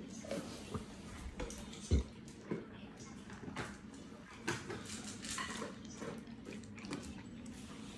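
Dogs eating dry kibble from metal bowls: irregular crunching and small clinks of food against the bowls, with a heavier knock about two seconds in.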